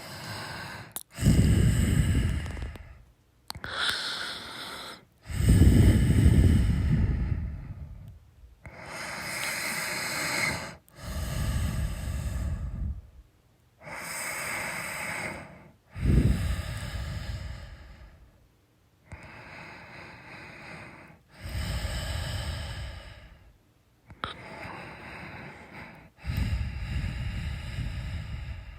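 A person snoring. Loud, low snores come about every five seconds, each followed by a quieter, breathy breath.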